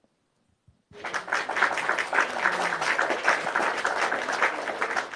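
Applause sound effect: a crowd clapping, starting suddenly about a second in.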